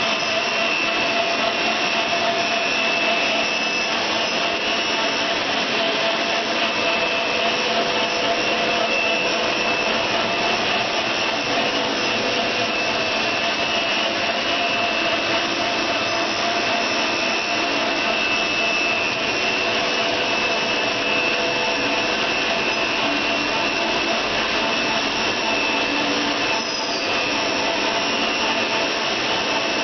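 Plastic blown-film extrusion machine running: a steady rushing noise from its motors and the cooling-air blower feeding the air ring, with a few steady whining tones above it.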